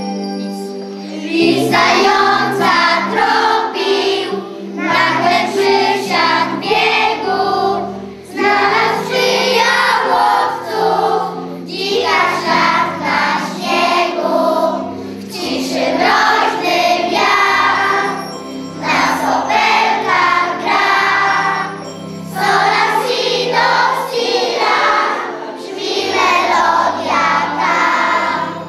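A group of children singing a Christmas song together in phrases, over an instrumental accompaniment with held bass notes.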